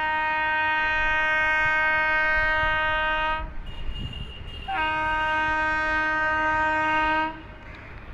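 WAP-4 electric locomotive's horn sounding two long, steady blasts: the first ends about three and a half seconds in, and the second starts about a second later and stops near the end.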